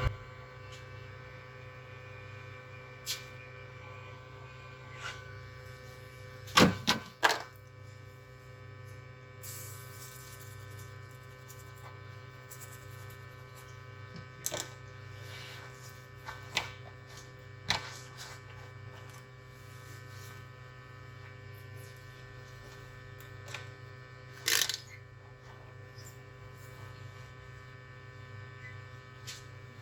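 Steady electrical hum from the repair-bench equipment, with a few light clicks and taps scattered through it, the loudest about seven seconds in and again near twenty-four seconds.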